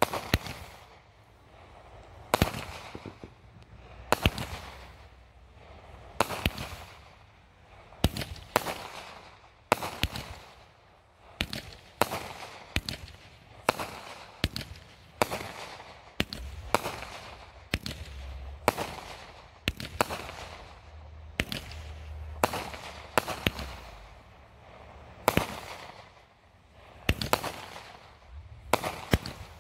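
Aerial fireworks going off in quick succession, a sharp bang about every second or so, each one fading away quickly.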